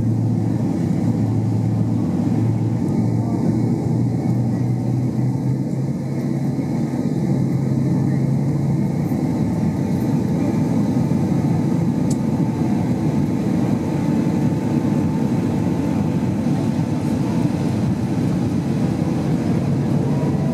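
Steady roar of a Boeing 767-300ER's engines and airflow heard inside the passenger cabin during descent, with a low steady hum that fades about nine seconds in.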